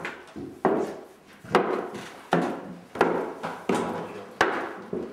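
Footsteps on wooden stairs: a series of heavy knocking steps, about one every three-quarters of a second.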